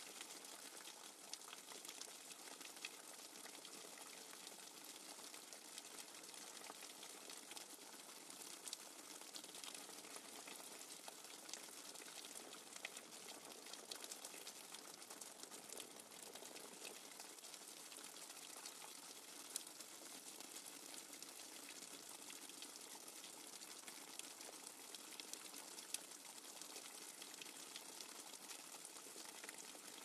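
Rainwater falling hard and fast in a steady downpour: an even hiss of water with many small drop splashes ticking through it.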